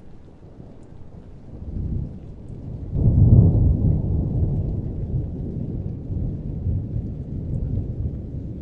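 Thunder: a low rumble builds, then a loud clap breaks about three seconds in and trails off into a long rumble that fades slowly.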